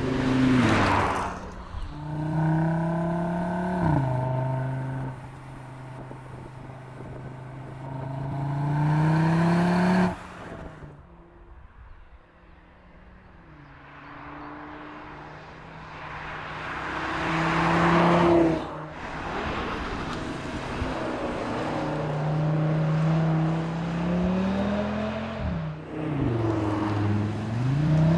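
Audi RS 3 sedan's turbocharged 2.5-litre five-cylinder engine and exhaust under acceleration: the engine note climbs with the revs and drops abruptly at each gear change, several times over. It falls quiet for a few seconds near the middle, then builds again.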